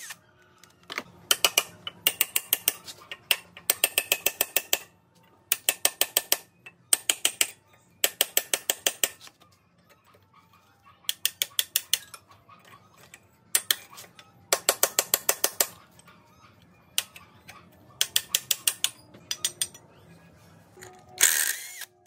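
Cordless impact wrench hammering in about a dozen short bursts, each a rapid run of sharp metallic impacts lasting up to about a second and a half. It is working loose rusted bolts on an engine's front pulleys.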